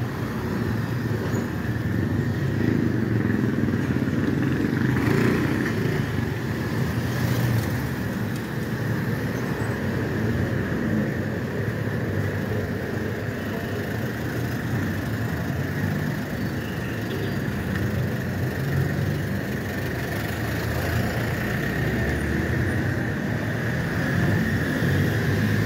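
Steady road traffic noise, with vehicle engines running.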